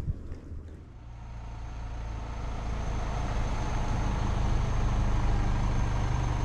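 A steady low engine drone that starts about a second in and grows louder over the next few seconds, with a faint steady high whine above it.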